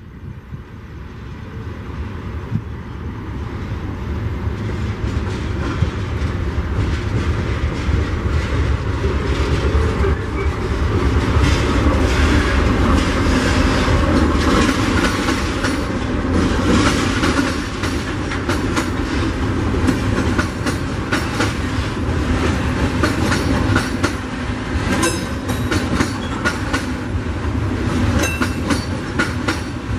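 Loaded freight train of eucalyptus-log wagons passing close by, led by a GE Dash-9 diesel locomotive. It grows louder over the first dozen seconds as the locomotive approaches and goes past, then the wagons rumble by with a steady clickety-clack of wheels over the rails.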